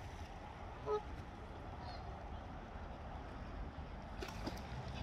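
Waterfowl at the river's edge: one short call about a second in, over steady low background noise.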